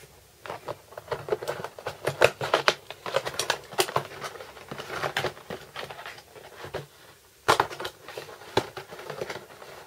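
Fingerboard packaging being opened by hand: a cardboard box being torn open and a clear plastic bag crinkling, an irregular run of rustles and crackles. There is a short lull about two thirds in, then a couple of sharp snaps.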